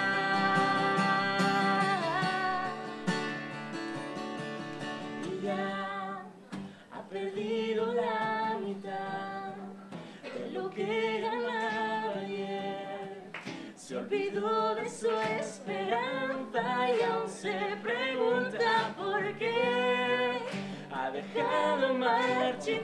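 Live song with acoustic guitar and a woman singing: a long held note over a ringing chord for the first few seconds, then a run of ornamented vocal lines that slide up and down in short phrases.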